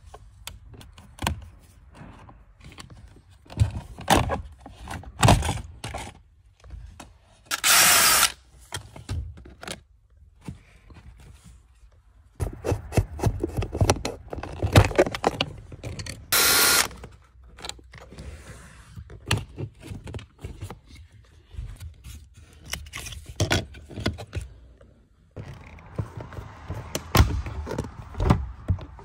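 Plastic interior trim panels of a Volkswagen Caddy being unscrewed and pried loose by hand: a string of clicks, knocks and scrapes of hard plastic. Two brief harsh noisy bursts stand out, one about a quarter of the way in and a shorter one just past halfway.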